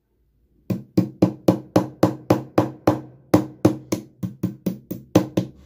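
Hammer and pop rivet: rapid metal-on-metal tapping, about eighteen sharp strikes at roughly four a second, each with a short ring, and a slightly longer gap a little past the middle.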